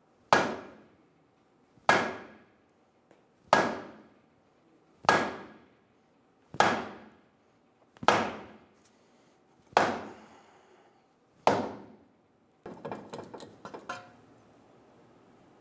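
A block of wood knocked hard against a Hyundai Sonata's lower control arm eight times, evenly about every second and a half, each knock ringing off briefly, to drive the arm's front end up into its front bracket. A few light rattling clicks follow near the end.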